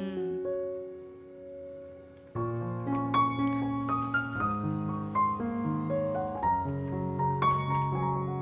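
Instrumental background music led by piano. It thins out and quietens at first, then comes back in fuller about two and a half seconds in.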